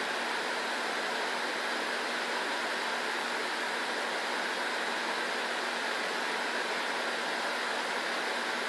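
Air conditioner running: a steady, even whoosh with a faint low hum.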